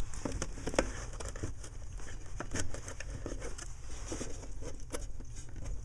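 Scattered small clicks and rustling as the two wire connectors are worked off the blower motor resistor behind the glove box.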